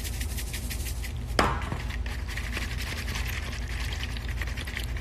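Close handling sounds: quick rasping scratches and one sharp knock about a second and a half in, over a steady low hum.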